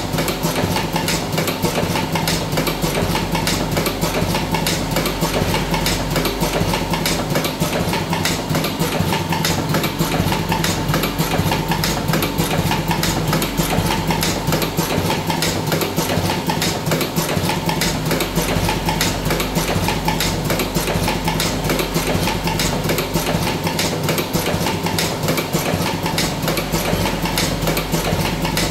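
Buffalo V4S electric cigarette tube-filling machine running continuously, a steady motor hum with rapid, even mechanical clatter.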